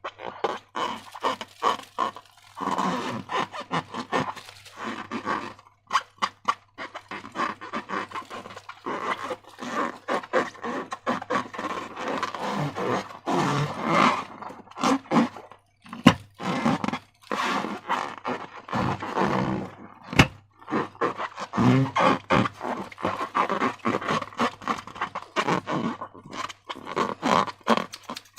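Slime being squished and worked by hand: a continuous run of wet squelches, crackles and small pops, broken by a few short pauses.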